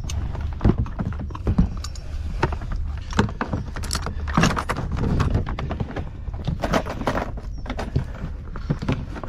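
Folding grapnel anchor and its chain clinking and knocking against each other and the bucket as they are handled, an irregular string of sharp metallic clicks over a steady low rumble.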